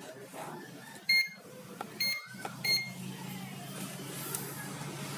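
Three short electronic beeps, then a steady low hum sets in about halfway through.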